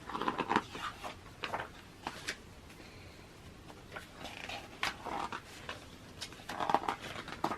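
Glossy magazine pages handled and turned, giving a string of short paper rustles and flicks.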